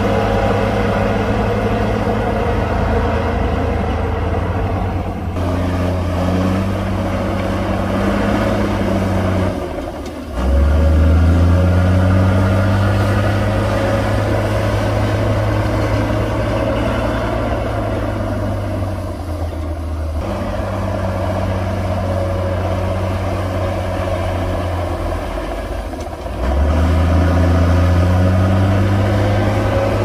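Komatsu D58P bulldozer's diesel engine running under load while the dozer pushes soil. The engine note dips briefly and then comes back louder and deeper about ten seconds in and again near the end.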